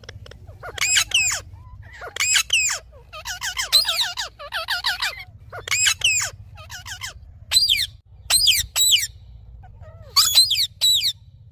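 Indian ringneck parakeet giving shrill calls that fall in pitch, in short groups of two or three, repeated every second or so.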